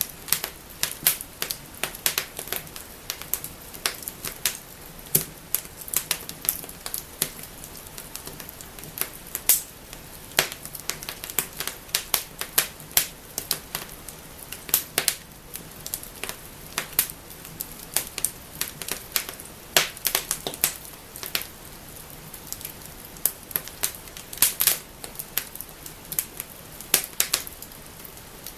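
Wood fire burning in a fireplace, crackling and snapping: irregular sharp pops, several a second, over a faint hiss.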